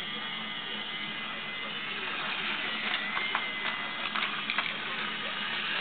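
My Little Pony Friendship Express toy train's small electric motor and plastic gears whirring steadily with a thin whine as it runs along its plastic track, with a few light clicks midway.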